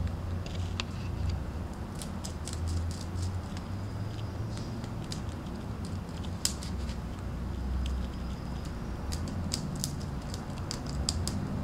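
Pet rabbit gnawing a willow stick of its woven tent: short crisp clicks and crunches of teeth cutting into the wood. They come in irregular bunches, busiest near the end.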